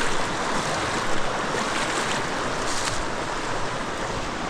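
Creek rapids rushing steadily, a loud even wash of moving water.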